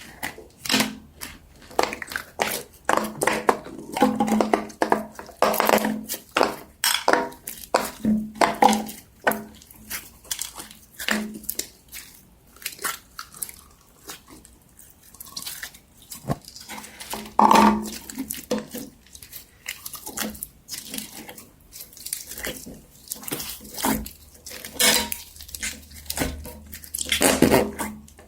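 Small hard objects being handled on a surface: irregular clicks, taps and light clatter, in a small room.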